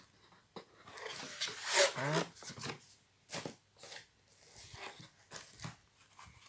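Cardboard headphone box being opened and its lid and packing handled, with scattered taps, clicks and rustles. About two seconds in, a short whining cry that drops in pitch.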